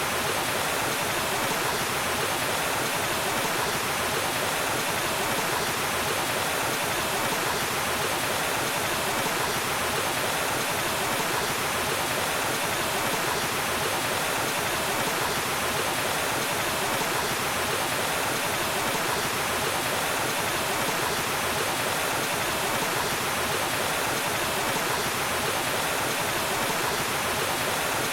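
Waterfall: water falling and rushing, a steady unbroken roar of white water.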